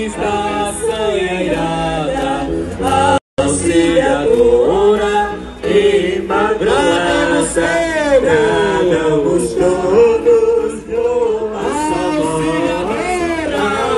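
Many voices singing a Portuguese religious hymn together, the melody rising and falling in long sung phrases. The sound cuts out for an instant about three seconds in.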